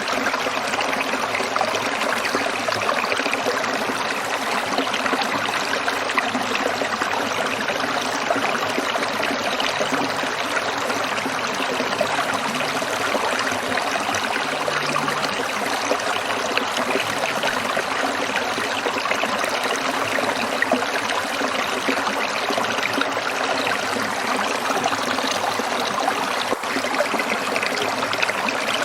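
Stream water trickling and splashing steadily over rocks.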